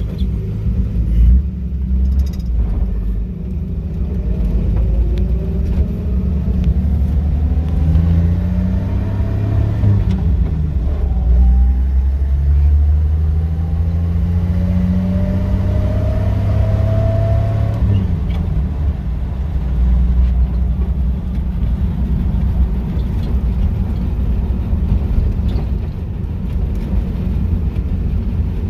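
Chevrolet 235 Blue Flame inline-six engine pulling the car down the road, its pitch climbing twice as it accelerates through the gears, then settling into a steady cruise. It runs smooth, without the lifter tick, after the bad lifter was repaired.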